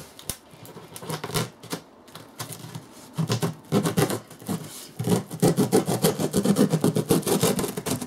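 Hands working at a cardboard shipping box and its packing tape: scattered scrapes and rubs, then about five seconds in a dense, fast crackling that is the loudest part, as the box's sealed top is worked open.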